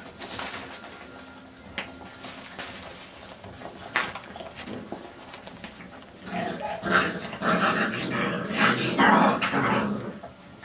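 Labrador puppies growling and yapping as they play-fight, loudest from about six seconds in to near the end, after a few light knocks and scuffles.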